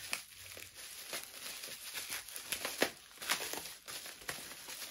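Packing material in a parcel crinkling and rustling as it is opened and unpacked by hand, in short irregular crackles.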